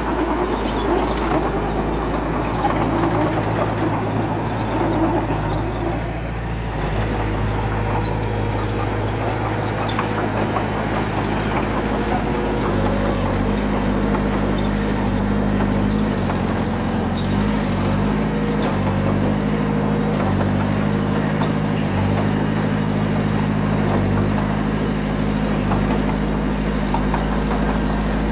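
Diesel engine of heavy earthmoving equipment running steadily under working load. Its engine note shifts in pitch several times, stepping up and down as the throttle changes.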